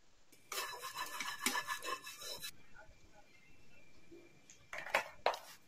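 A spatula scraping around the inside of a kadhai for about two seconds, starting about half a second in. A few short sharp knocks follow near the end.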